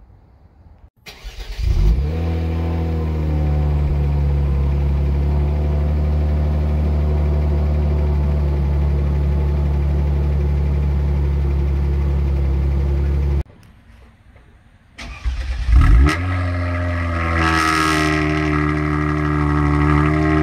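Two cold starts of a 2019 Kia Stinger GT2's twin-turbo 3.3-litre V6, heard at the exhaust tips. First on the stock exhaust: the starter cranks about a second in, the engine catches with a flare and settles to a steady fast idle. After a cut, the same cold start with a high-flow-cat downpipe and midpipe and an MBRP Pro Series cat-back: a sharper flare on catching, then an idle with more of the upper tones in it.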